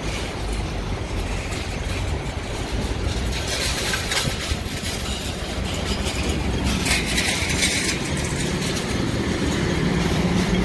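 City street traffic: car and truck engines running, with vehicles passing now and then on a busy road.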